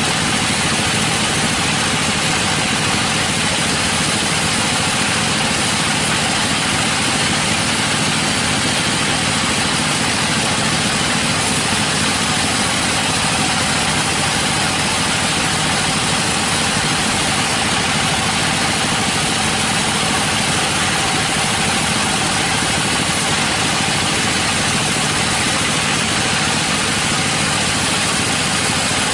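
Sawmill machinery running steadily: a motor with a dense, even hiss over it that does not change.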